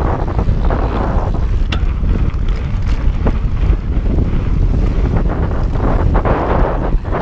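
Wind buffeting the microphone of a mountain biker's first-person camera while riding a dirt singletrack: a steady low rumble with hissy gusts that come and go, and a few sharp ticks and rattles from the bike on the trail.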